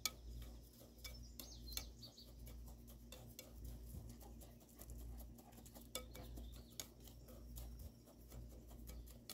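A spoon stirring a dry mix of rolled oats, flour and brown sugar in a bowl: faint, irregular scraping with light clicks and taps against the bowl.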